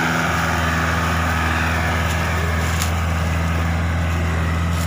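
Mahindra 575 tractor's four-cylinder diesel engine running steadily under load, pulling a heavily loaded sugarcane trolley.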